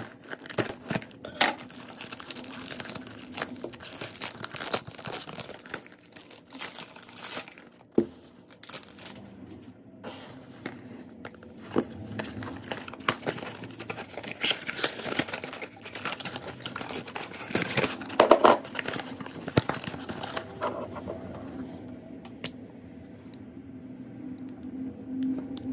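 A fragrance box being unwrapped and opened by hand: packaging crinkling and tearing in a busy run of rustles and crackles, with the cardboard box handled. It quietens over the last few seconds.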